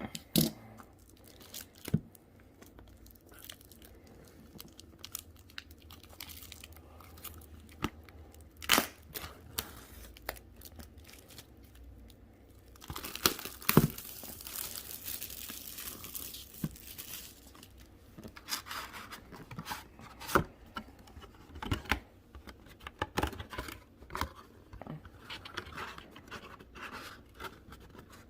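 Packaging of a sealed trading-card display box being torn open and crinkled, with scattered clicks and taps of handling. A longer rip runs for a few seconds about halfway through.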